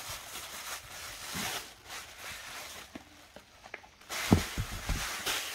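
Thin plastic bag crinkling and rustling as it is pulled open and handled, with a louder thump about four seconds in.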